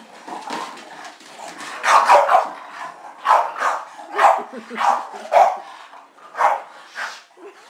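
English bulldog giving a run of about eight short, rough play barks while chasing and tussling with a person's feet.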